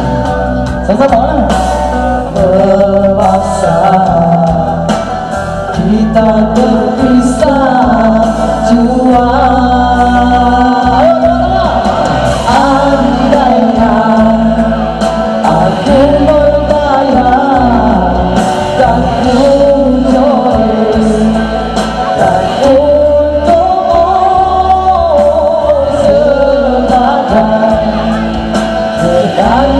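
A woman singing a Malay rock ballad live into a microphone over a loud karaoke backing track played through a PA system.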